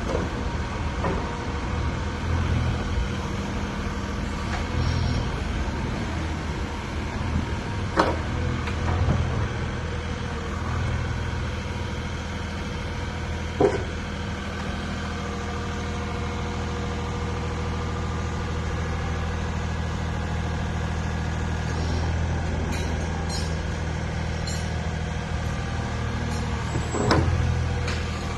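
Diesel engine of a JCB 50Z-2 mini excavator running steadily, its level swelling slightly now and then. A few sharp metallic knocks come through, one about 8 seconds in, one about halfway through and one near the end.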